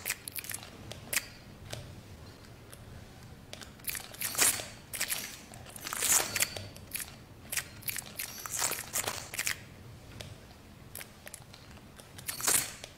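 Irregular crackling and crunching: scattered sharp clicks between louder hissy, rustling swells, the biggest about four and a half, six and nine seconds in and near the end.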